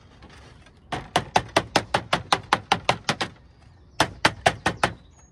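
A lead dresser beating code 4 lead sheet flashing against brickwork, dressing it flat to take out the corrugation. A quick run of about a dozen sharp strikes, about five a second, then a pause and a shorter run of about six strikes.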